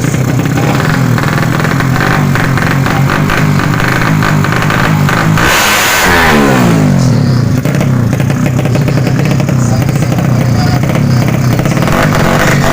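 200 cc underbone drag-race motorcycle engines at high revs. About six seconds in, a bike runs past with a loud rush and its engine note slides down in pitch.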